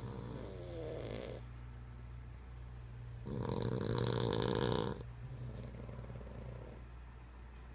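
A sleeping dog snoring: a snore trailing off about a second in, a louder, longer snore from about three to five seconds in, then a softer one.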